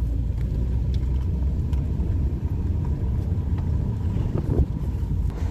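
Steady low road rumble and engine drone of a moving car, heard from inside the cabin.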